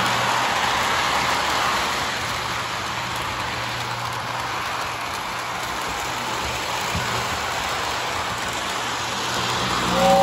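Lionel O-gauge toy train rolling on its track: a steady rolling whir of wheels and motor, with a faint hum. It gets louder as the locomotive comes close near the end, and a two-note tone starts right at the end.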